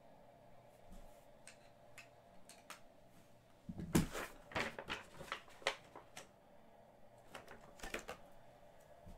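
Hard plastic card holders being handled: a cluster of sharp clicks and clacks about four seconds in, a few more near the end, and light ticks between, over a faint steady room hum.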